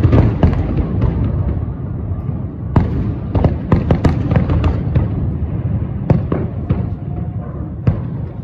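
Aerial fireworks bursting: a steady low rumble of bangs and crackle, a quick cluster of sharp reports about three seconds in, then single bangs spaced roughly a second apart near the end.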